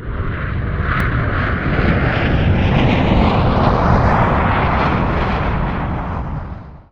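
Loud steady roar of a passing vehicle, swelling slightly and then fading out near the end.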